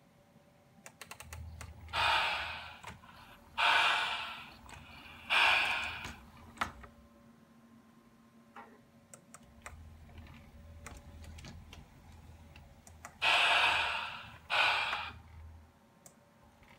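LGB Stainz garden-scale locomotive's electric motor and gears running, a low drone, in two stretches with a short pause between. Over the drone come five loud hissing bursts, three close together and then two, each fading quickly, and a few light clicks near the start.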